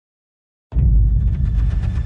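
A deep rumble, almost all bass, starts suddenly less than a second in and carries on loud.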